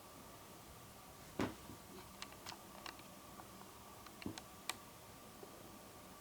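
Scattered sharp clicks and taps over faint room tone, with one louder, fuller knock about a second and a half in.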